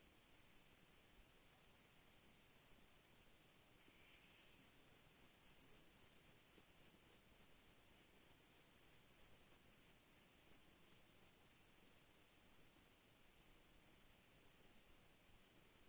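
Evening insects trilling steadily at a high pitch. A second insect joins with a pulsing call of about two to three pulses a second from a few seconds in until a few seconds before the end.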